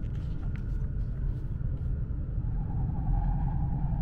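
Steady low rumble of an E5 Series Shinkansen running at speed, heard inside the passenger car. A steady higher-pitched tone joins about two and a half seconds in.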